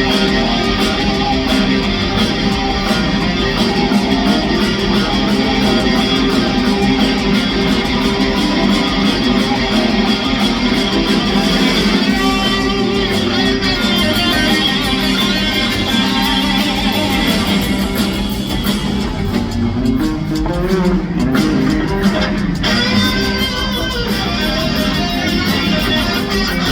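Live rock band playing loudly, with electric guitar to the fore over bass and drums, and pitch bends in the guitar line about 20 seconds in.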